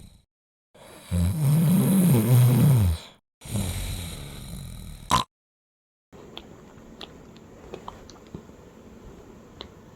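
Miniature dachshund snoring in short separate bursts: the loudest, about a second in and lasting two seconds, is a low pitched snore that wavers up and down, followed by a fading breathy snore that ends in a sharp click. From about six seconds only a quieter background with small ticks remains.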